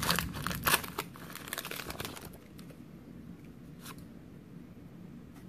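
Foil wrapper of a Pokémon trading card booster pack being torn open and crinkled. The pack is stiff and hard to open. The crackling tearing is loudest in the first second and dies away after about two seconds, leaving only faint handling of the cards.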